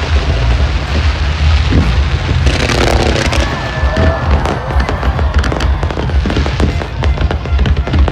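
Fireworks display: a steady run of bangs and crackling, densest about three seconds in, over loud music with a heavy bass.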